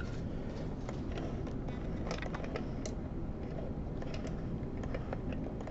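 Scattered small clicks and taps of microscope parts being handled and fitted, over a steady low hum.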